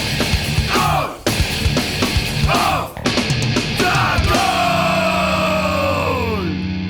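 Loud heavy rock music with drums and shouted vocals; past the middle a long held note slides steadily down in pitch.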